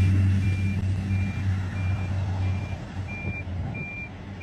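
Engine and propeller drone of a topdressing plane spreading lime, fading steadily as it moves away down the hillside airstrip. A high short beep repeats about one and a half times a second throughout, like a vehicle's reversing alarm.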